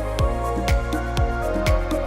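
Electronic background music with a steady kick drum about twice a second and sharp percussion between the beats, over held bass and synth chords.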